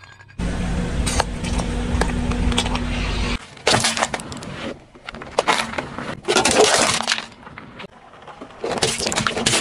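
A car's tyres rolling over small objects and crushing them. First there is a steady low rumble of the car moving, then three crackling, crunching bursts, about a second in length each, as things break under the wheels.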